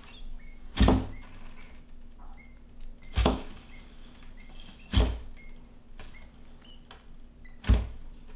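Quail chick peeping in short, faint, high chirps, broken by four loud thumps about two to three seconds apart.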